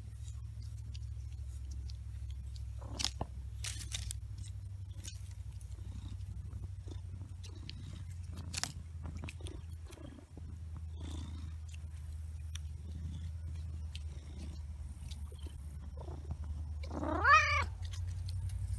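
A big black domestic cat purring steadily and deeply, close to the microphone, with a few light clicks. Near the end it gives one short, loud meow that rises and falls in pitch.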